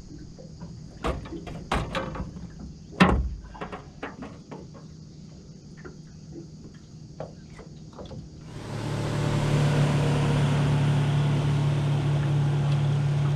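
Scattered light clicks and knocks, the sharpest about three seconds in, then a motorboat engine comes up near the end and runs steadily with a low hum.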